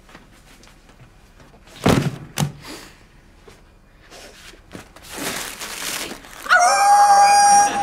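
Two heavy thuds in quick succession about two seconds in, then a stretch of rustling. Near the end a boy lets out a long, loud, high-pitched yell held on one pitch.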